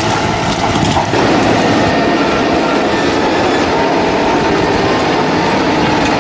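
Heavy land-clearing machine with rows of spiked steel rollers, its engine running under load as the spikes churn through roots and soil. The noise is loud, steady and dense, and changes character about a second in.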